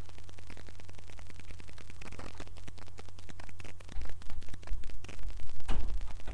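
Crackly static and a steady low hum from a webcam microphone, with a run of heavy thumps and bumps from about four seconds in.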